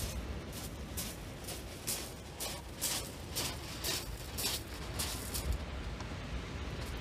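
Footsteps crunching on shingle, about two a second, over a steady low rumble of wind and surf.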